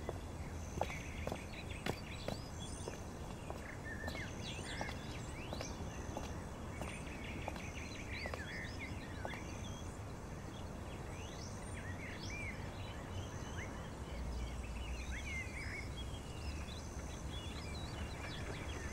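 Outdoor ambience of small birds chirping on and off over a steady low hiss, with a thin high note repeating about every second and a half. A few faint ticks come in the first few seconds.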